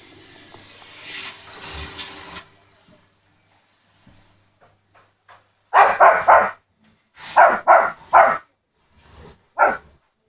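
A Pomeranian barking in quick runs of two to four loud barks. Before that, a vacuum cleaner's hissing runs louder and cuts off suddenly about two seconds in.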